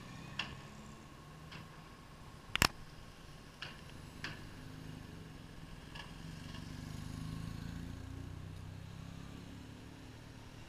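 Vehicles driving off a car ferry's ramp: a low engine hum that swells to a peak about seven seconds in as a motorcycle rolls past, with a handful of sharp knocks, the loudest about two and a half seconds in.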